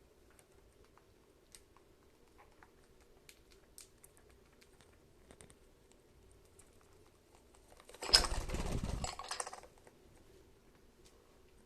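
Pet budgies making scattered light taps and clicks, then a loud burst of rapid rustling lasting under two seconds, about eight seconds in.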